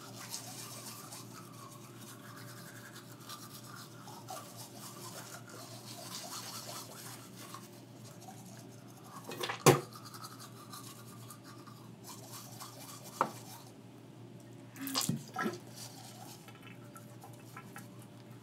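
Manual toothbrush scrubbing teeth, a steady scratchy brushing. A sharp knock about halfway through, another a few seconds later and a short cluster near the end.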